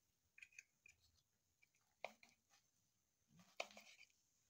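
Faint clicks and scrapes of a table knife cutting through a baked grated-potato pizza against a ceramic plate, with a fork holding it; the clearest clicks come about two seconds in and again about three and a half seconds in.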